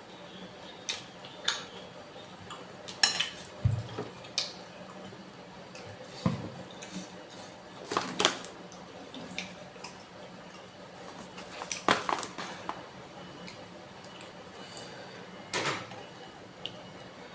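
Cutlery clinking and scraping against a bowl of bakso soup during eating, in scattered short clinks, the loudest a few seconds apart.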